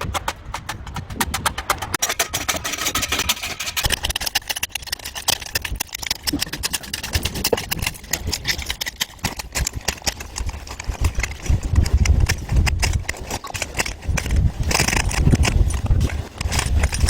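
Rapid, irregular knocking and rattling, several knocks a second, from a homemade concrete compaction tool at work, over a low rumble that grows heavier about ten seconds in.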